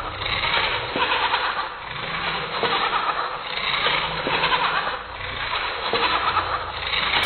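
Two hobby servos whirring as they swing the robot insect's legs back and forth, the buzz swelling and fading in a steady rhythm about once a second, with a few light taps of the legs on the tile floor.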